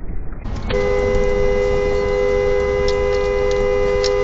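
A car's two-tone horn held down in one long, steady honk, starting just under a second in.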